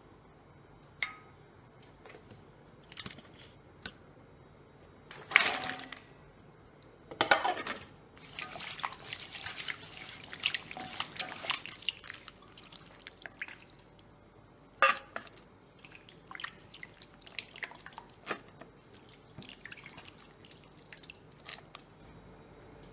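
Wet slices of raw papaya being lifted by hand out of salt water in a steel bowl: water splashing and dripping off them in short, irregular bursts, busiest between about five and twelve seconds in.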